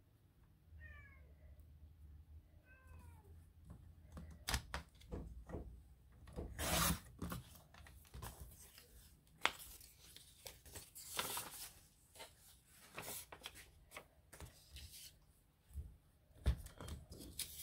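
A cat meows twice, briefly, with falling pitch. Then paper is handled on a paper trimmer: rustling, clicks and short sliding swishes of the blade cutting paper.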